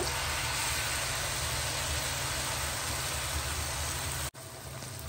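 Battered potato spirals on skewers deep-frying in hot oil in a pan, a steady sizzle. It cuts out for an instant a little after four seconds and comes back quieter.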